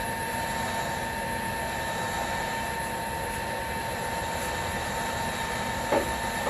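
American engine lathe running under power: steady machine noise with a constant whine from the spindle drive and gears, and a single knock about six seconds in.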